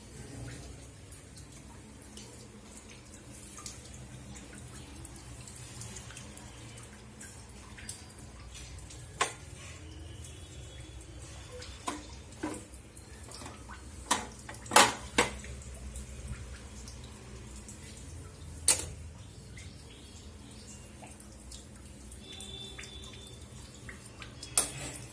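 Water running steadily, with a few sharp clicks and knocks, most of them in the middle stretch and the loudest about fifteen seconds in.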